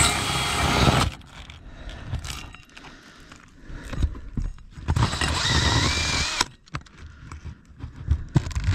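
Power drill spinning a hole saw that seems very dull. It stops sharply about a second in, and metal clinks and knocks follow. Near the middle the drill runs again for about a second and a half, its pitch rising.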